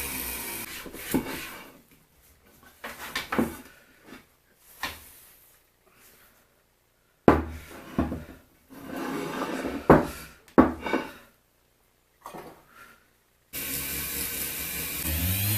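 Rotary tool with a brass wire brush running, stopping about a second and a half in. A series of separate knocks and clunks of handled parts follows. The tool runs again for the last two seconds.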